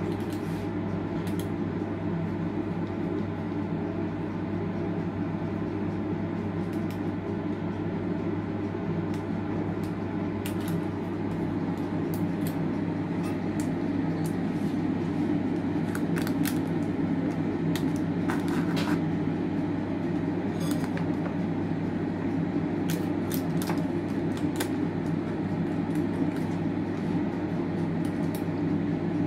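Steady mechanical hum of a motor or fan running without change, with a few scattered light clicks and taps.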